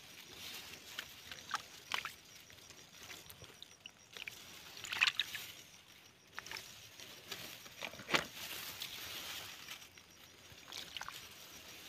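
A hand sloshing and squelching through shallow muddy water, with an irregular string of sharper splashes, the loudest about five seconds in and again about eight seconds in.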